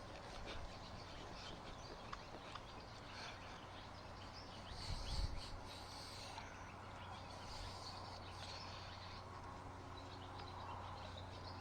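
Faint outdoor background of birds chirping over a steady low hum, with one short low thump about five seconds in.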